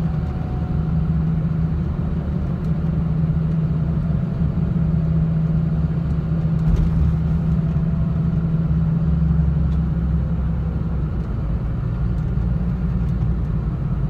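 Steady low engine and road hum of a car, heard from inside the cabin while driving.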